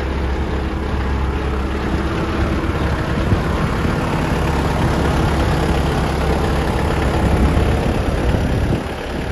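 Mitsubishi GX510 tractor's four-cylinder turbo diesel engine running steadily at low speed, a low rumble that swells a little in the middle and eases near the end.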